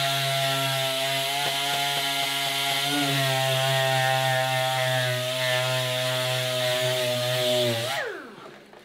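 Air-powered random orbital sander running on plywood, a steady whine over a hiss of air. About eight seconds in it shuts off and winds down with falling pitch.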